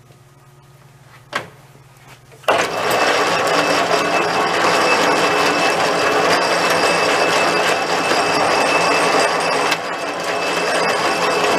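Sheldon Model NA metal lathe: a click, then at about two and a half seconds the lathe starts up with a sudden loud, steady mechanical whir of its drive and gears. The whir carries on with a brief dip near the end.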